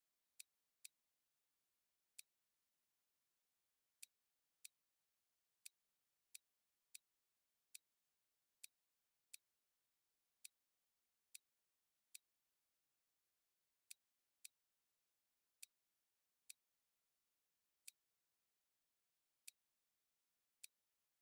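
Computer mouse button clicking repeatedly to turn a model on screen: faint, sharp single clicks, irregularly spaced at roughly one a second, some in quick pairs.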